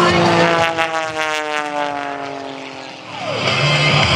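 Aerobatic biplane's engine and propeller passing by, the pitch falling steadily as it goes away and fades. Rock background music comes back in about three seconds in.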